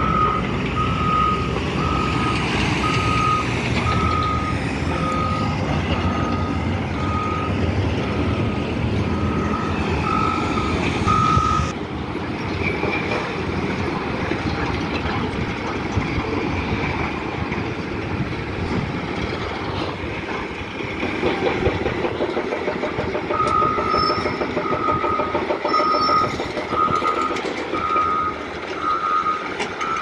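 A construction vehicle's reversing alarm beeping steadily, about once a second, over the rumble of heavy engines running. The beeping breaks off at a sudden cut about twelve seconds in and starts again some seven seconds before the end.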